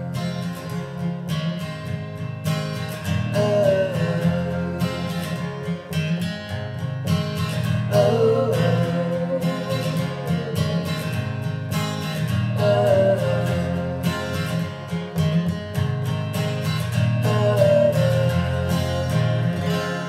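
Acoustic guitar strummed steadily under a man and a woman singing together in long held phrases.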